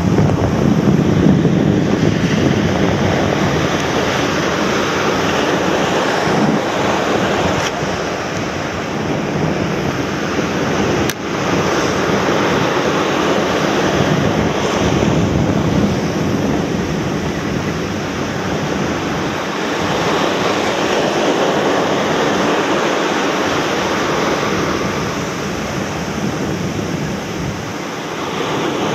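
Surf breaking and washing up a sandy beach, swelling and easing every few seconds, with a strong wind buffeting the microphone. One brief click about a third of the way in.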